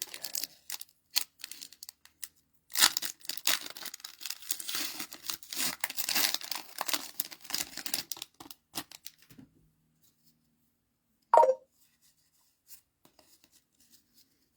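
A trading-card booster pack wrapper being torn open and crinkled for several seconds, thinning out to quiet by about nine seconds in. About eleven seconds in there is one brief, loud, sharp sound.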